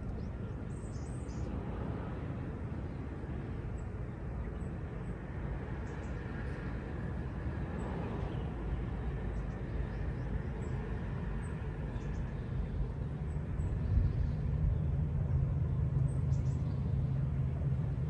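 A low engine rumble that grows louder in the last few seconds, with faint bird chirps here and there above it.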